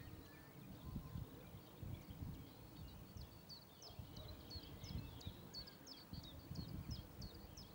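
Birds singing in the distance, a run of short high chirps repeated again and again, more of them in the second half, over a low, gusty rumble.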